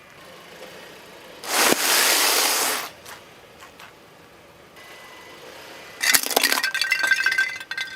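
Things crushed under a car tyre: a loud hissing rush about a second and a half in that lasts over a second, then crunching and breaking with glassy clinks from about six seconds in.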